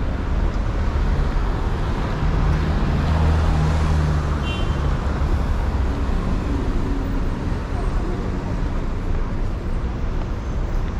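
City street traffic: a steady hum of passing cars, with a vehicle engine's low rumble growing louder for a few seconds about two seconds in.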